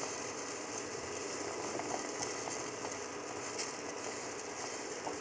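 Faint steady hiss with occasional small crackles from a steel bowl of jaggery and water heating on an induction cooktop, as the jaggery begins dissolving into syrup.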